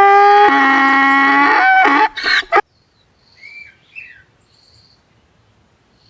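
Donkey braying: one long call that steps down in pitch about half a second in and breaks off about two and a half seconds in. Faint bird chirps follow.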